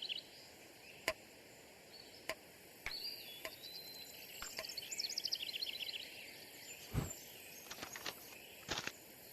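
Faint outdoor nature ambience from a cartoon soundtrack: high chirping trills of insects or birds, with a scatter of short sharp clicks and a few louder knocks near the end.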